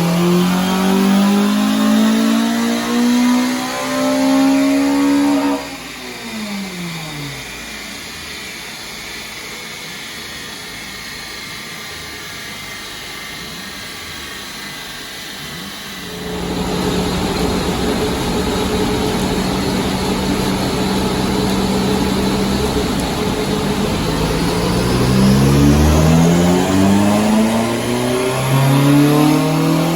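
Honda Civic FN2 Type R's four-cylinder engine under power runs on a rolling road: it revs up for about five seconds, then the throttle closes and the revs fall away. About sixteen seconds in a loud steady rush starts with the engine held at steady revs, and near the end it revs up again.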